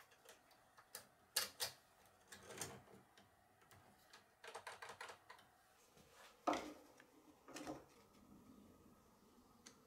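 Small clicks and taps of a long jigsaw blade being fitted into a Bosch PST 650 jigsaw's blade clamp and handled against the acrylic jig plate. A quick run of clicks comes about halfway through, and the loudest knock follows a moment later.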